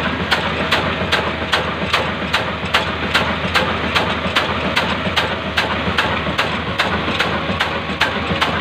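Old black-oil engine running steadily while driving a stone flour mill, with an even beat of sharp knocks about two and a half times a second over a constant mechanical din.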